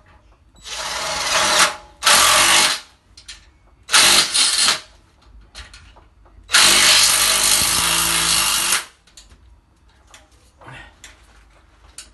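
Cordless drill-driver run in four bursts, the last and longest about two seconds, fastening a steel boiler wall-mounting plate to the wall.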